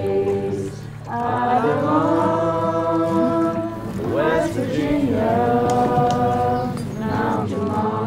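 Slow vocal music: voices singing long held notes in phrases that break off about every three seconds, over a steady low drone.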